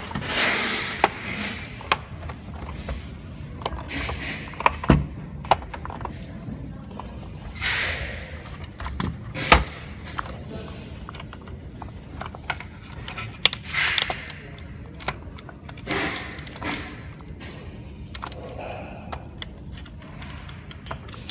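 Hands handling a robot vacuum's plastic body: scattered plastic clicks and knocks, with rustling in between. The loudest knock comes about nine and a half seconds in.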